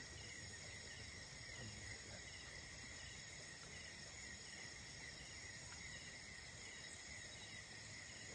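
Faint, steady insect chorus, a continuous high-pitched trill with thinner, higher tones above it, over a low background hiss.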